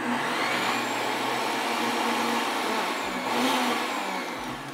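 Countertop blender running steadily at a constant whir, blending a thick cake batter of eggs, apple, raisins, carrot, coconut oil and rolled oats.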